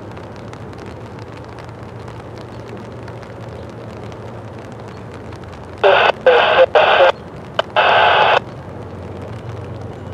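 Diesel locomotive air horn of an approaching CSX freight train sounding a quick series of blasts about six seconds in, one of them very short and the last the longest, over a steady low background rumble.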